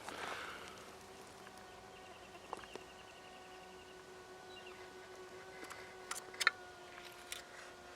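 A bee buzzing close by, a faint steady hum held for several seconds, with a few light clicks and rustles.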